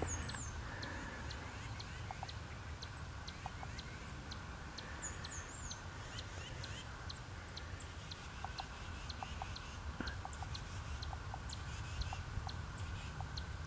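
Small birds calling faintly: many short, high chirps scattered throughout, with a brief warbled phrase right at the start and another about five seconds in, over a low background rumble.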